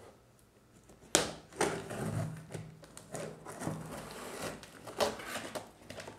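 A knife blade slitting and scraping along clear packing tape on a cardboard shipping box, scratchy tape and cardboard noise. It starts sharply about a second in, after a brief lull.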